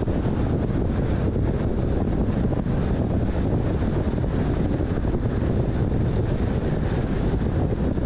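Steady low rumble of wind buffeting the microphone mixed with the road noise of a moving car.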